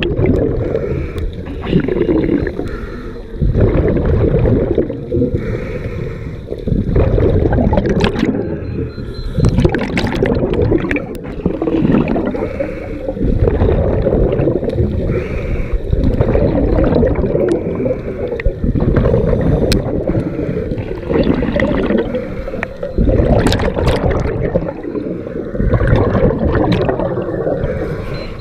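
Scuba diver breathing through a regulator underwater: each exhaled breath goes out as a surge of bubbling and gurgling every two to three seconds, with short quieter gaps for the inhales.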